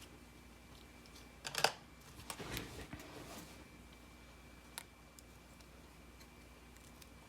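Small clicks and a brief scrape from handling the opened iPod's small parts and tools: a sharp click about a second and a half in, a short scraping about a second later, and a single faint tick near five seconds.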